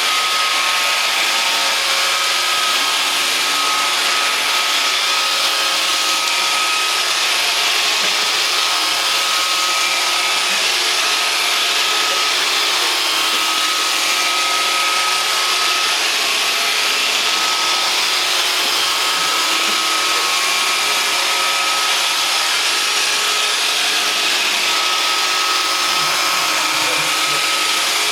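Roomba robotic vacuum cleaner running, a steady whir of its motors and brushes with a steady high whine running through it.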